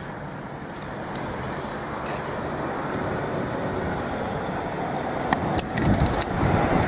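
Road traffic noise from a vehicle on the street, growing steadily louder as it comes nearer, with a few sharp handling clicks near the end.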